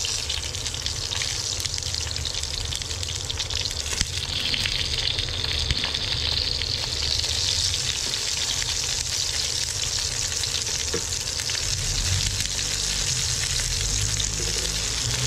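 Milkfish (bangus) and eggplant sizzling steadily as they cook, with a couple of sharp pops about four and six seconds in, over a low steady rumble.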